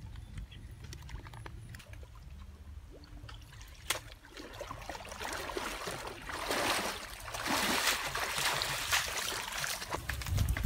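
Muddy pond water splashing and sloshing as people wade through it holding woven bamboo eel traps, building up about halfway through and loudest in the second half. A single sharp click about four seconds in.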